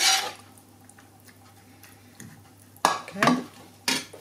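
Metal spoon scraping and knocking against a frying pan of minced-meat sauce while ladling it into a lasagne dish. There is a loud scrape at the start, then a few sharp clatters about three seconds in as the pan and spoon are set down.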